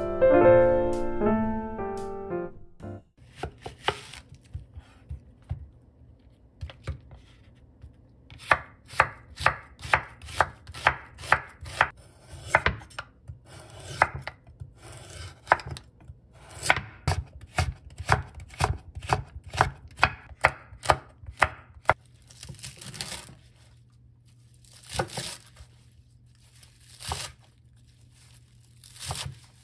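Chef's knife cutting vegetables on a wooden cutting board. First comes a run of quick, even strokes, about two a second, while julienning a peeled carrot. Near the end there are slower single cuts, about two seconds apart, through minari (water dropwort) stalks.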